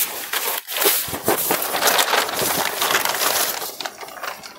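Crisp crinkling rustle of a stiff organza saree, woven with gold and silver zari, being unfolded and spread out by hand, with paper crackling beside it; it dies down near the end.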